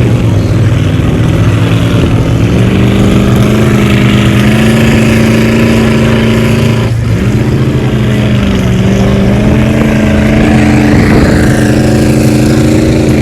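A large off-road truck engine running under load and revving, its pitch rising and falling in a steady drone. The sound breaks off abruptly about seven seconds in and picks up again.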